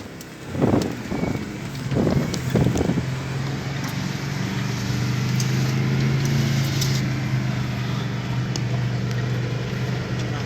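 Off-road vehicle's engine running with a steady low hum, after a few louder uneven bursts in the first three seconds; a few faint ticks over it.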